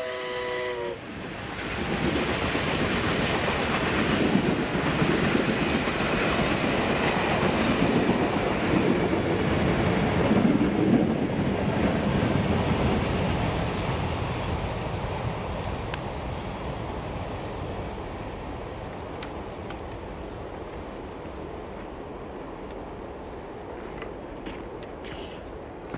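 Passenger coaches of a steam excursion train rolling past on the rails, wheels clicking and rumbling, then fading slowly as the train moves away. The end of the locomotive's steam whistle dies out in the first second.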